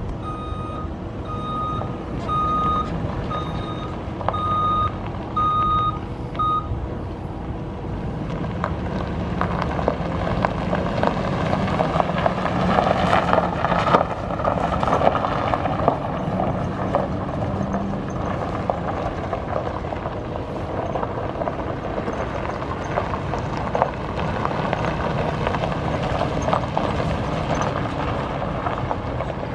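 Electronic warning beeper sounding about once a second, seven beeps that stop about six and a half seconds in, over the steady running of a 2015 Ford F350 Super Duty's 6.2-litre gas V8. The engine noise gets louder and busier in the middle, with a sharp click near the halfway point.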